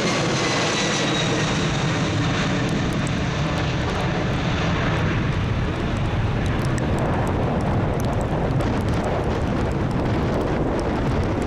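Jet engines of a large airliner passing close by: a whine falling in pitch at the start gives way to a steady, deep rumble of jet noise.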